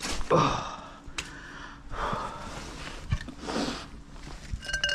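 A man breathing hard, with about three heavy breaths, as he hauls a magnet up on its rope. A brief high-pitched tone sounds near the end.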